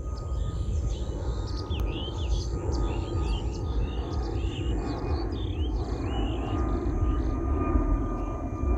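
Steady low rumble of a jet airliner passing high overhead, with a bird chirping a quick series of short notes through the middle.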